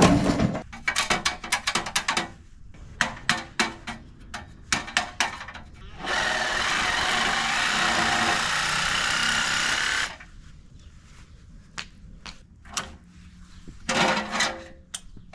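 A cordless drill runs steadily for about four seconds, partway through, with a faint rising whine. Before it come a hard knock and a scatter of metal clicks and clanks from work on the meter enclosure, and a few more clanks follow near the end.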